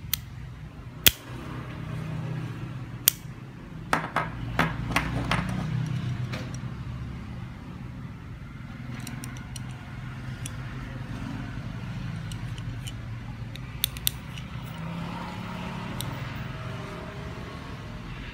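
Aluminium locking carabiners being handled: sharp metal clicks and clinks of the gates and frames, one about a second in, another about three seconds in, a quick run of four or five around the fourth and fifth seconds, and a few more near the end, over a steady low hum.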